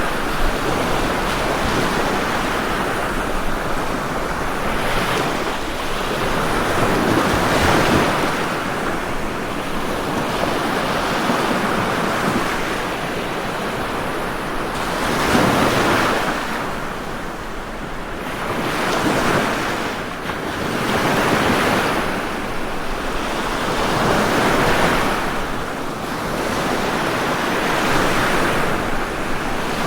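Ocean waves breaking and washing on a shore, a continuous surf with swells building and falling every few seconds.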